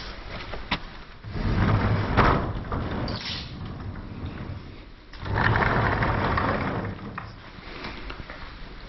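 Wooden lattice sliding door of a small shrine hall rumbling along its track as it is slid, about a second in and again around five seconds, with a few sharp knocks.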